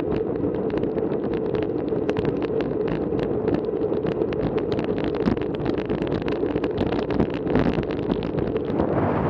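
Wind rushing over the microphone of a handlebar-mounted action camera on a moving bicycle, with tyre and road noise from wet tarmac. Frequent small knocks and rattles from the bumpy road run through it.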